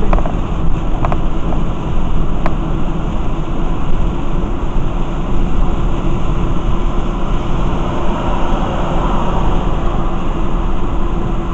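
Steady cabin noise of a car driving at freeway speed in heavy rain: tyres on the wet road and rain on the windshield. A few faint ticks sound in the first few seconds.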